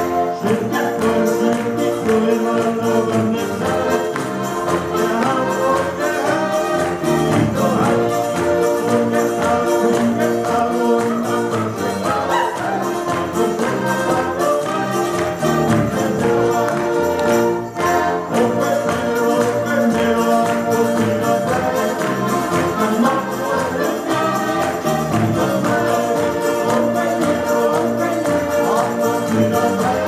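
An ensemble of diatonic button accordions playing a lively tune together, with a brief break in the music about 18 seconds in.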